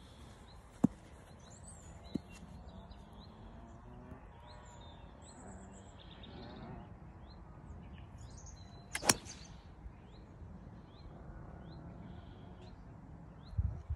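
A 3 wood striking a golf ball off the fairway turf: one sharp crack about nine seconds in, with birds chirping in the background.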